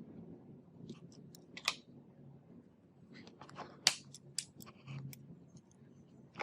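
Small hard objects being handled: a string of sharp clicks and short scraping rustles, about eight in all, the loudest about four seconds in.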